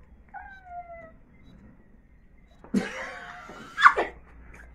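Women laughing: a high squealing note that falls away, a short lull, then a burst of breathy laughter with a shrill shriek near the end.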